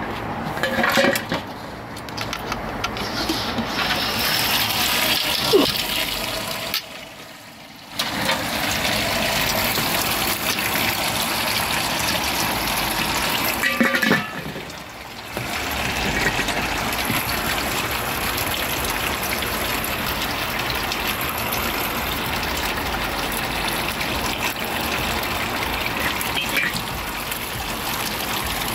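Wort pumped through the recirculation arm of an all-in-one electric brewing system, pouring and splashing steadily onto the grain bed in the malt pipe during the mash. A few metal clanks from the stainless lid being lifted off come in the first seconds, and the splashing drops away briefly twice.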